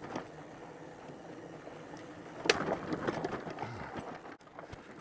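Fat-tire e-bike riding over a rough trail: a low rolling rumble, then a sharp knock about halfway in followed by a run of clatters and rattles. The sound cuts out for an instant near the end.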